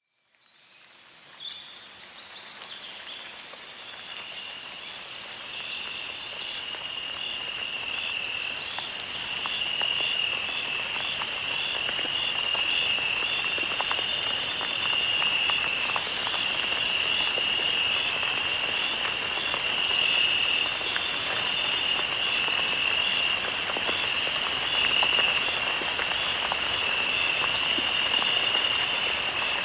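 A steady, high-pitched trilling chorus of calling animals over an even hiss of water, fading in over the first few seconds.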